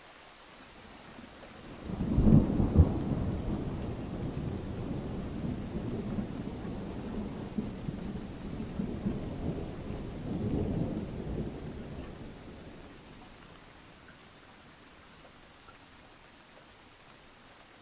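A thunderclap about two seconds in, followed by long rolling thunder that swells again near the middle and fades away, over a steady hiss of rain.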